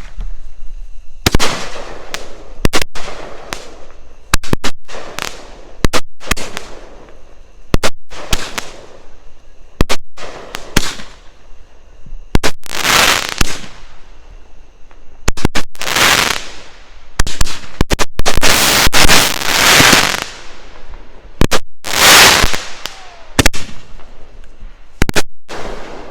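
A consumer multi-shot fireworks cake, a 500-gram repeater, firing shot after shot. There are sharp launch pops and bangs about every second, and several louder bursts trail hissing crackle.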